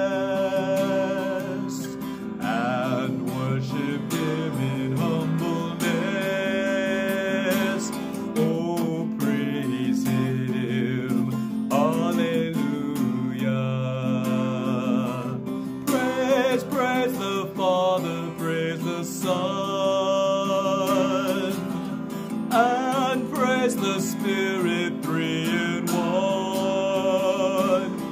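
A man singing a hymn, accompanying himself on a strummed acoustic guitar, his held notes wavering with vibrato.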